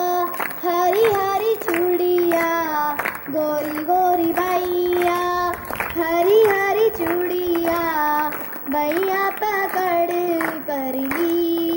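A girl singing a song solo into a handheld microphone, without accompaniment, holding long notes with a wavering pitch and pausing briefly for breath between phrases.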